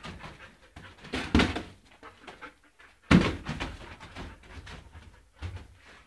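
Belgian Malinois scrambling over wooden crates and boards: a run of knocks and bangs from paws and body hitting the wood, the loudest about three seconds in.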